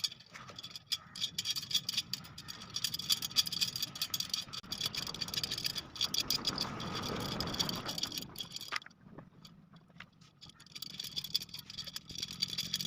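Small metallic clicks and rattles of a spoke wrench turning the spoke nipples on a 36-spoke motorcycle wheel rim as the spokes are tightened a little at a time. A low rumble swells and fades in the middle.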